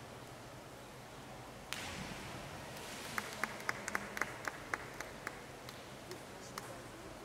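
Two synchronized divers entering the water from the 5 m platform, a splash that starts suddenly about two seconds in and hisses away over a few seconds. It is followed by a scattering of about a dozen separate handclaps from a few spectators.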